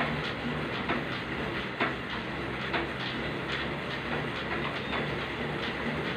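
Elliptical cross-trainer in use: a steady whir with a click or knock at each stride, a little under once a second.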